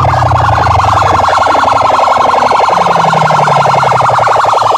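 Sound-service PA system playing a loud, rapidly pulsing siren-like tone, with a deep bass tone underneath that drops out in the middle and comes back.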